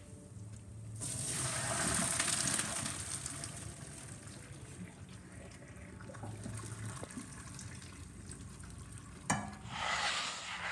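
Cooked elbow macaroni and its hot cooking water being poured from a pot into a wire-mesh strainer in a stainless steel sink: a splashing rush that starts about a second in and gradually thins out. Near the end comes a knock and another short rush.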